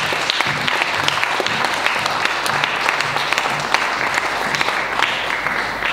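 Audience applauding at the end of a spoken-word performance, a dense patter of many hands clapping that thins a little near the end.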